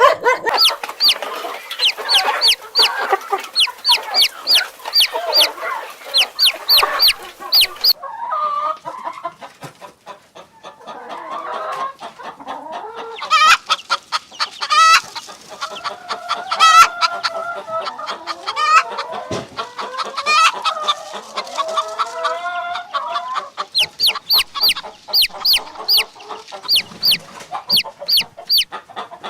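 Chickens clucking in quick repeated calls. In the middle stretch the calls turn longer and wavering, with a few sharp squawks.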